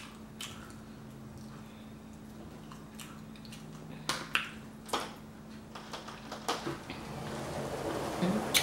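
Fingers peeling the shells off grilled shrimp on a skewer: scattered small clicks and crackles, then mouth and chewing sounds near the end. A faint steady hum lies underneath.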